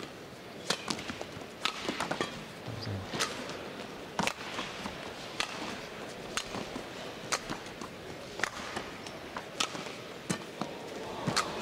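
Badminton rally: rackets striking the shuttlecock in turn, a sharp crack about once a second.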